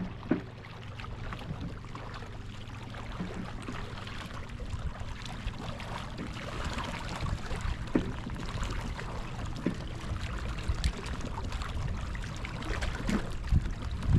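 Water lapping and trickling against a kayak hull, with a few light knocks on the boat.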